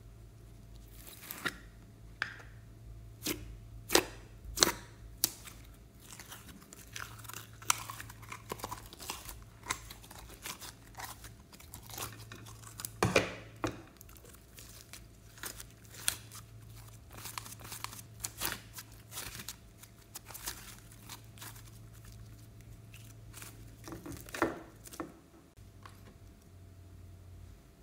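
Purple slime being handled by hand: turned out of its plastic tub, then stretched, folded and pressed, giving irregular sticky clicks, pops and crackles. The loudest pops come about four seconds in and near the middle, over a faint steady low hum.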